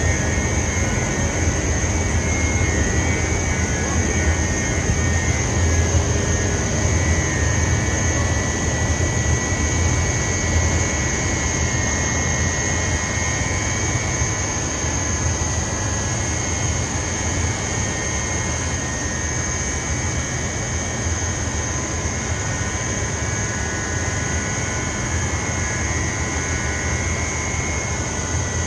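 Machinery of a rock wool production line running steadily, a continuous industrial noise with a low hum and a steady high whine over it.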